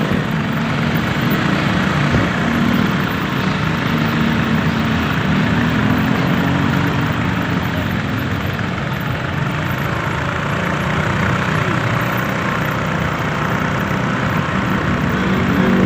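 A vehicle engine running with steady road and traffic noise.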